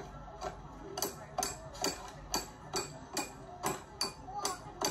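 A flat metal scraper chopping and chipping a slab of hard peanut candy against a metal tray, with sharp, regular knocks about twice a second.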